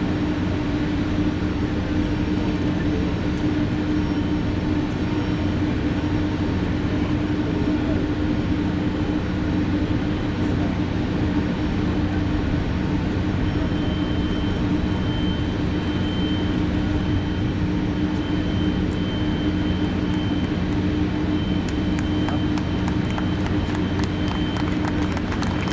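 Steady low machine hum from the parked Airbus A300-600ST Beluga while its nose cargo door is being raised. A thin high whine joins about halfway through, and a patter of light clicks comes near the end.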